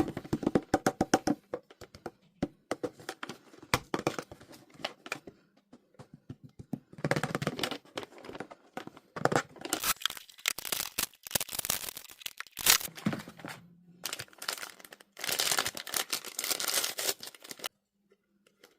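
Toy packaging being torn open and crinkled by hand, in irregular bursts of crackling with sharp snaps, stopping about a second before the end.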